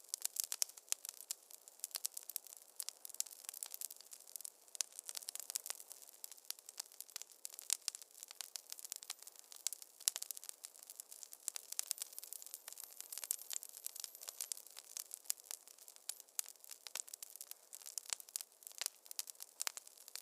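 Wood fire crackling in a fireplace: a dense run of sharp irregular pops and snaps over a soft hiss.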